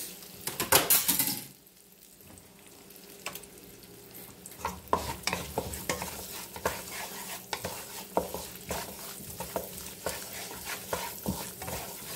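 Chopped onion and garlic sizzling in vegetable oil in a nonstick pan, with a wooden spatula stirring and scraping across the pan bottom. The stirring is loudest about a second in, eases off for a couple of seconds, then picks up again as a run of short scraping strokes.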